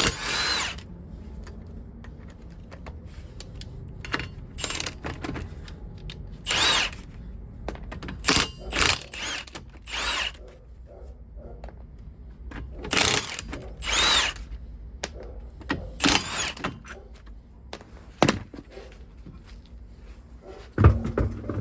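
A handheld power tool with a 19 mm socket undoing the car's wheel bolts, in repeated short bursts that each rise and fall in pitch, with a few knocks in between.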